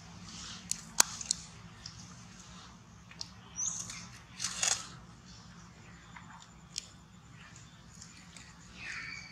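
Small sharp clicks and taps as a baby macaque picks at and mouths a mossy stone, with a brief rustle midway. A few short high chirps, and a whistled call near the end.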